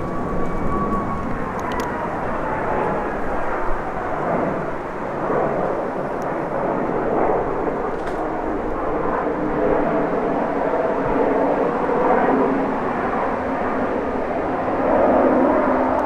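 Twin-engine jet airliner flying low overhead: a steady jet roar, with an engine whine that falls in pitch over the first two seconds and a swell in loudness near the end.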